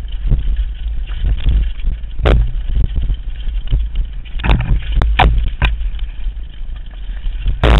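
Downhill mountain bike riding fast over a rough, rocky dirt trail: a constant low rumble of wind and vibration on the bike-mounted camera, with several sharp knocks as the wheels hit rocks, the loudest near the end.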